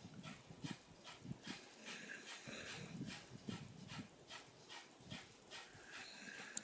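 Pit bull snoring in its sleep: faint, quick rasping breaths, about two a second.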